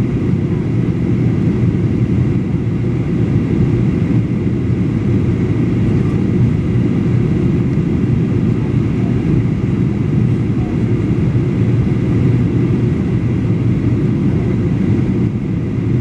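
Steady low rumble of engine and airflow noise inside the cabin of a Boeing 737-800 in flight on descent.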